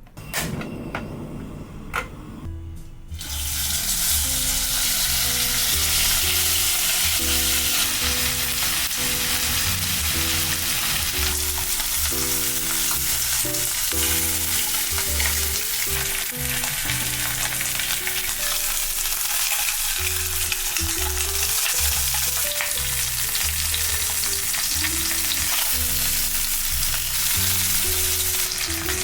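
Food frying in hot oil in a pan: a couple of sharp knocks, then a loud, steady sizzle that starts about three seconds in and runs on. Quiet background music with a simple stepping melody plays underneath.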